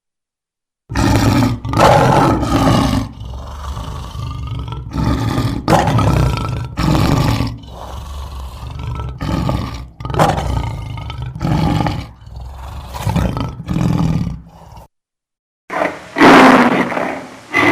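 Lion roaring: a long roar, then a string of shorter roars about once a second that grow weaker. After a brief silence, another loud roar starts near the end.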